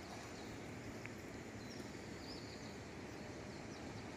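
Faint outdoor ambience: a low steady background hiss and rumble with scattered short, high bird chirps.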